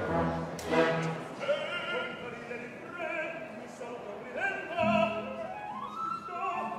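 Live opera: the orchestra plays and a man sings over it, with a wavering vibrato.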